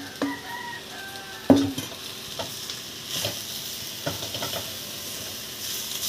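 Diced carrots tipped from a stainless steel bowl into a pot of frying ground pork, the bowl clanking against the pot at the start and loudest about a second and a half in. Then a wooden spoon stirs and scrapes the mix as it sizzles.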